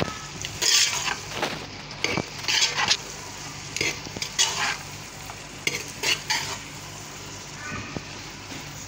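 Metal ladle stirring and scraping chopped vegetables and peas around a metal pot, in irregular strokes about once a second, over a steady sizzle of the vegetables frying in oil.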